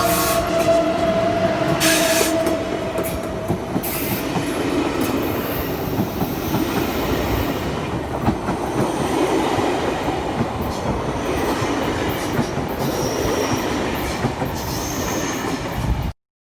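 Train running on the rails with a steady rumble and scattered rail clicks, and a few short, high wheel squeals near the end. The sound cuts off suddenly just before the end.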